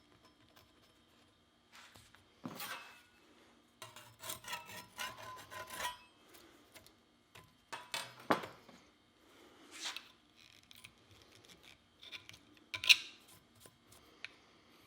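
Irregular scraping and rubbing on wood, broken by a few sharper knocks, the loudest near the end.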